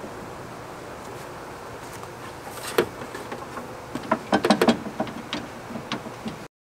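Fiberglass anchor poles knocking and clacking in their holders against an aluminum jon boat as they are handled: one sharp knock a little under three seconds in, then a quick cluster of knocks about four to five seconds in, with a few lighter taps after.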